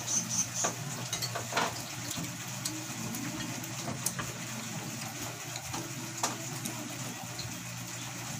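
Eating sounds: chewing, with a few sharp clicks of a fork against dishes and a plastic food container scattered through, over a steady background hiss.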